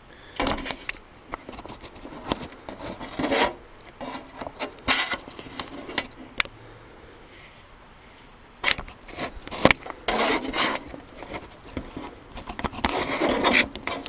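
Handling noise from the camera being shifted and set in place: irregular rubbing and scraping against the mic, with several sharp clicks.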